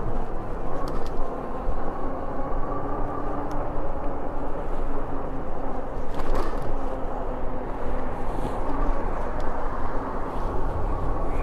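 Steady riding noise from an e-bike moving along a road: wind rushing over the microphone, with the even hum of the bike's motor and tyres.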